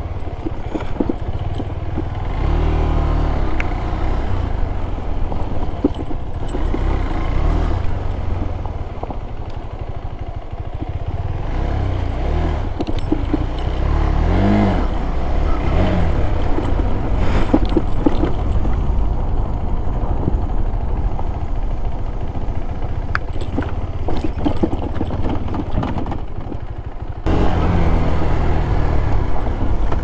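KTM 390 Adventure's single-cylinder engine running at low speed on a rough dirt track, its pitch rising and falling several times with the throttle. Near the end the sound abruptly jumps louder.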